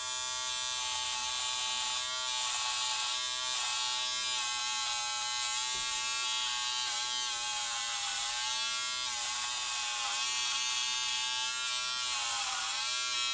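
Braun XT5 electric trimmer with a 5 mm guide comb buzzing steadily as it clips the hair on the head, its pitch sagging briefly now and then.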